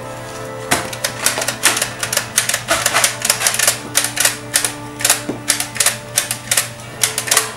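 Background music with a rapid, irregular run of sharp clicks, about three or four a second, starting less than a second in.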